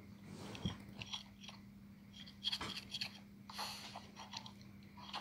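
Faint clicks and gritty scrapes of a plastic card tapping and scraping on a hard surface, with a short breathy hiss about three and a half seconds in.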